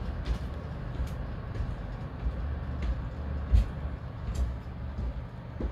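Broan ceiling exhaust fan running quietly: a steady low hum and rush of air, with a bump about three and a half seconds in.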